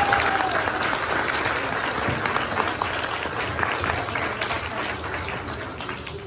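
Audience of children and parents applauding, a dense patter of hand claps that gradually dies down.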